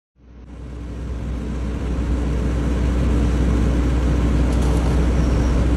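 Truck engine running steadily, with a deep low rumble and a constant hum. It fades in from silence over the first couple of seconds.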